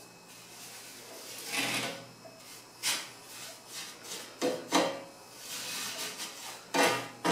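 A paintbrush sweeping soot off the underside of a metal wood-stove top plate: scratchy bristle strokes on the metal, several of them short and sharp.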